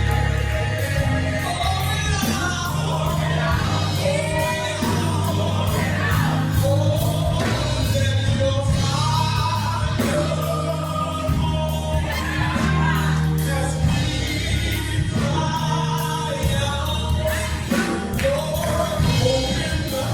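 Gospel singing with instrumental backing: voices carrying a melody over bass and drums.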